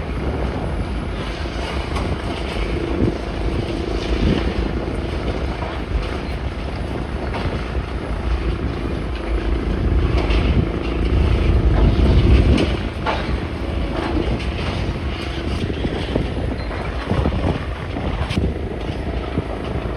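Wind buffeting the microphone in a dense, low rumble, with a faint hum coming and going in the middle.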